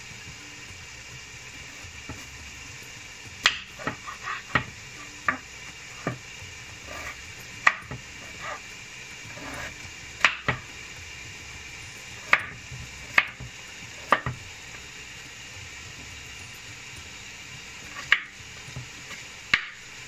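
Kitchen knife cutting peeled potatoes into cubes on a wooden cutting board: irregular sharp knocks of the blade meeting the board, a dozen or more, with a pause of a few seconds in the second half. A steady hiss runs underneath.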